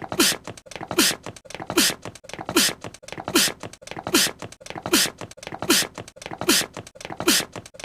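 A short voiced anime-character sneeze, looped so it repeats about every 0.8 seconds, ten times in all: each one a quick falling squeak of voice with a sharp hiss.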